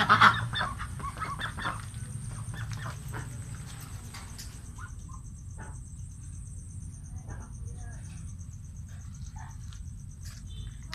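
Young Pekin ducks calling: a loud burst of quacks in the first couple of seconds, then scattered quieter calls.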